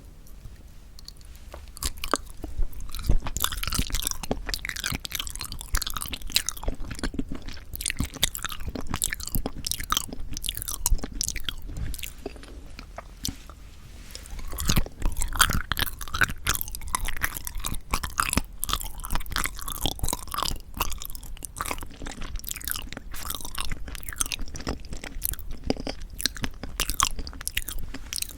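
Close-miked chewing of soft, dense yanggaeng (sweet red bean jelly): wet, sticky mouth sounds with many small clicks, quieter for a moment near the start and again about halfway, when a fresh bite starts a busier stretch.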